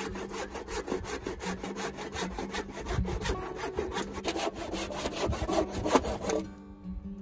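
Hand saw cutting through a dead tree branch with quick, evenly paced strokes that stop about six seconds in.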